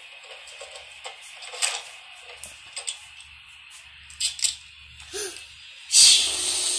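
Handling noise from a phone held close to the face: irregular light clicks and taps, then a loud rush of noise about six seconds in.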